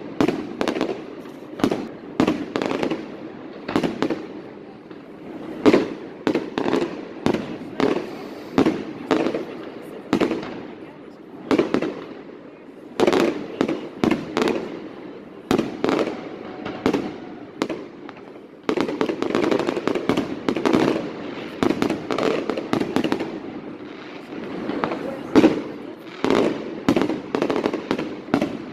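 Fireworks display: many sharp bangs in quick, irregular succession, growing denser past the middle, over a background of people talking.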